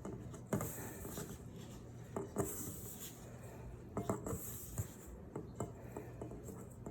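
Hands mixing flour and water into dough in a bowl: faint, scattered soft taps and knocks against the bowl.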